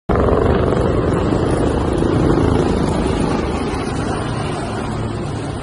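Several military helicopters flying overhead, their rotors making a steady, rapid chop that grows slightly fainter toward the end.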